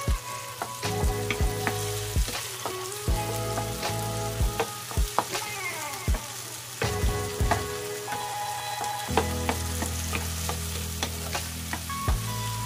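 Shrimp paste frying with tomatoes, onion and garlic in a pan: a steady sizzle while a utensil stirs it, with repeated sharp clacks against the pan.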